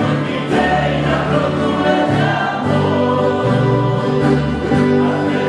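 Background music of slow, sustained chords, with held notes changing step by step.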